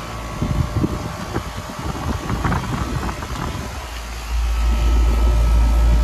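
2022 Carrier Comfort central air conditioner's outdoor condensing unit running with a steady hum, over irregular crackling and rustling. A loud low rumble comes in about four seconds in.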